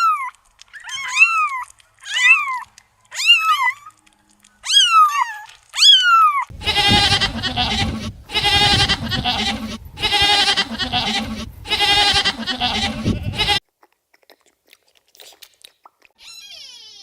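Animal calls: six short pitched calls, each rising and then falling, about a second apart, followed by four long wavering cries of about a second and a half each that stop abruptly.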